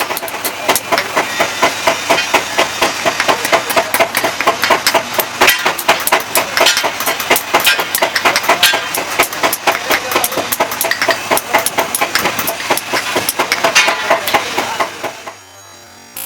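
Rapid, irregular metal-on-metal tapping and clatter, several sharp strikes a second, typical of hand work on a steel file blank; it stops abruptly about a second before the end.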